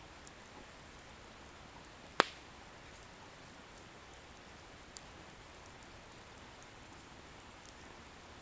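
Wood bonfire burning with a faint steady hiss. About two seconds in, one sharp, loud pop of the firewood crackling, with a few faint ticks elsewhere.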